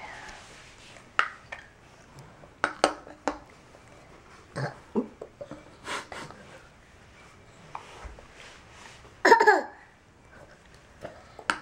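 A metal spoon clicking and scraping against a plastic bowl as a toddler eats yogurt, with small mouth sounds. About nine seconds in, the toddler lets out one short, loud vocal squeal.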